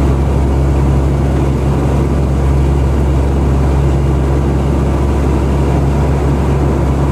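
Steady engine and road noise of a vehicle driving along a road, with a constant low hum and no change in speed.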